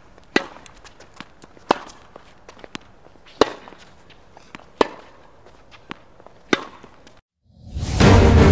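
Tennis rally: a ball struck back and forth by racquets, a sharp hit about every one and a half seconds with fainter ticks between. Music starts near the end after a brief cut-out.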